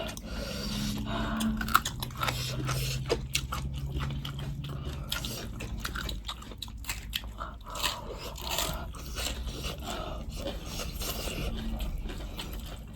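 Close-up eating sounds: a person chewing and biting goat meat, with irregular mouth smacks and clicks.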